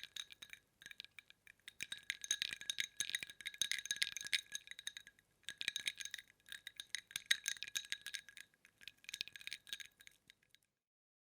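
Ice cubes clinking and rattling in quick runs of many small hits with a bright ringing tone. They come in about four bursts with short pauses between, and stop a little before the end.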